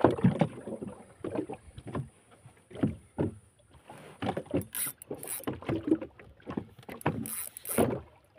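Irregular knocks and thuds from a small fishing boat and its rod gear as an angler works a rod against a hooked big tuna, with a few short hissing bursts about five and seven-and-a-half seconds in.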